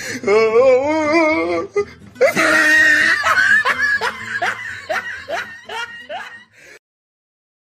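Comedy laugh sound effects: a warbling, wavering voice for about a second and a half, then a long run of rhythmic "ha-ha-ha" laughing pulses, each dropping in pitch. The laughter cuts off suddenly a little before seven seconds in.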